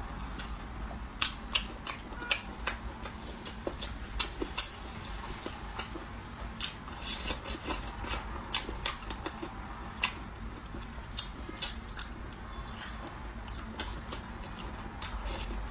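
Close-up eating sounds: wet chewing and lip smacks while eating saucy roasted baby chicks, heard as many irregular sharp clicks and smacks, some louder than others.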